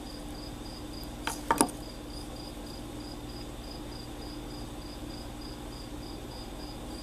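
Cricket chirping steadily, short high-pitched chirps about three times a second. A couple of short sharp clicks break in about a second and a half in.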